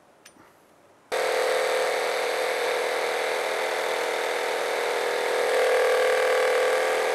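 Makita cordless jigsaw cutting through a plywood template. It starts abruptly about a second in and runs steadily with an even whine.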